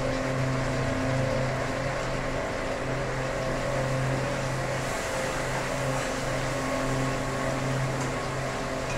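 A steady low mechanical hum over a constant hiss, unchanging throughout.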